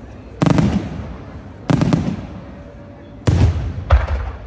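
Aerial firework shells bursting in a display: four loud bangs, about half a second in, just under two seconds in, and two close together near the end, each trailing off as it echoes.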